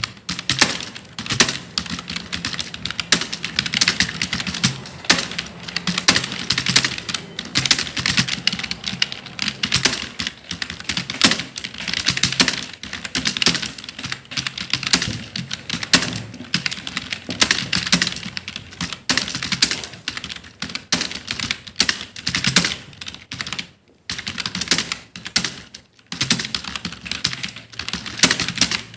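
Fast, continuous typing on a computer keyboard: a dense stream of key clicks, with two brief pauses near the end.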